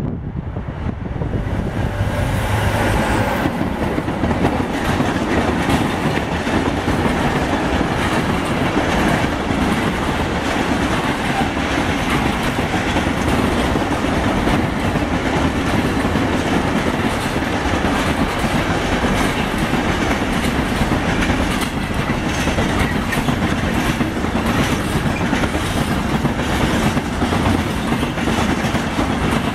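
A freight train hauled by a Bombardier Traxx E186 electric locomotive passes close by. Its long string of loaded container flat wagons rolls past with a steady clickety-clack of wheels over the rail joints.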